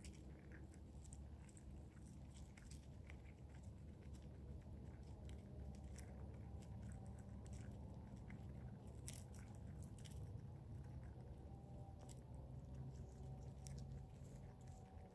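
A chipmunk cracking and chewing sunflower seeds at a metal bowl: faint, irregular little crunches and clicks.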